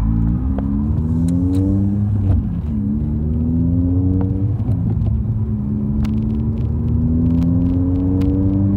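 Honda Type R's i-VTEC four-cylinder engine and exhaust under hard acceleration, heard from inside the cabin. The note rises in pitch through the gears, drops back at gear changes about 2.5 and 5 seconds in, then climbs slowly and steadily.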